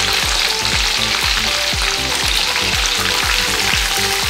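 Battered chicken lollipops deep-frying in hot oil in a pan: a steady, loud sizzle of bubbling oil. The pieces are browned and at the end of their frying.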